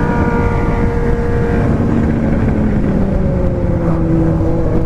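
Four-cylinder car engine running steadily, its pitch falling slowly as the revs drop, over road noise.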